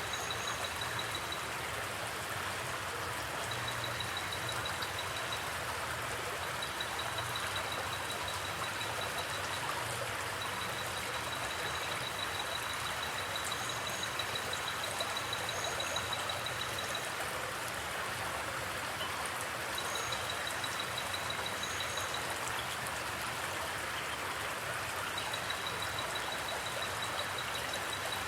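Steady rush of water flowing in a forest stream. A high, fast-pulsing trill comes and goes above it in runs of a few seconds, with faint short double chirps higher still.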